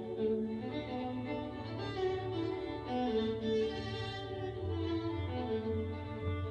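Music with bowed strings playing sustained notes over a steady low bass line.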